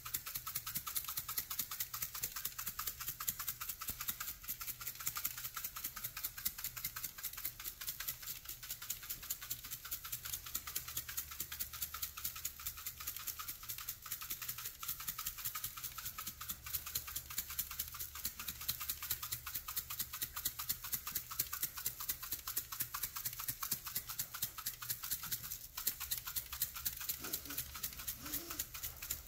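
Shaker of crushed red pepper shaken in quick, steady strokes: a continuous fast rattle of flakes against the container, over a low steady hum.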